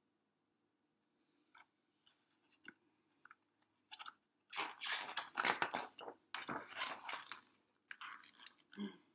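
Paper pages of a picture book rustling and crinkling as they are turned and the book is handled. A few small ticks come first, then a longer stretch of rustling about halfway through, and a shorter one near the end.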